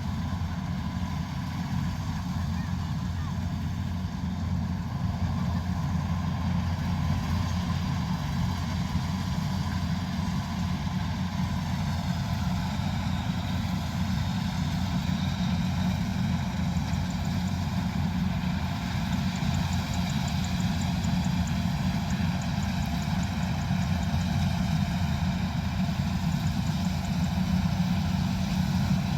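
Combine harvester's diesel engine running steadily, a constant low drone that grows slightly louder about halfway through.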